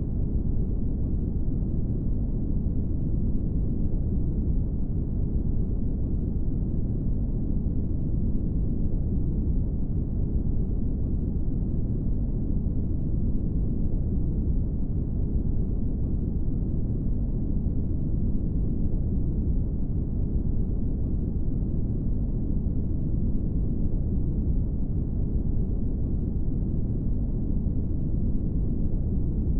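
Brown noise: a steady, deep, even rumbling hiss with nothing above the low-mid range.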